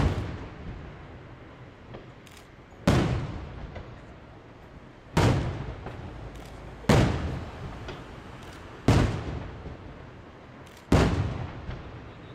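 Aerial firework shells bursting overhead: six loud booms about two seconds apart, each followed by a rolling echo, with a few small cracks between them.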